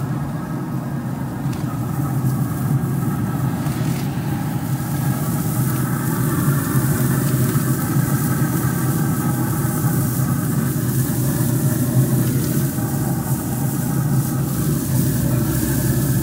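Pit Boss pellet grill running with a steady hum from its combustion fan, while raw burger patties are laid on the hot grates and sizzle.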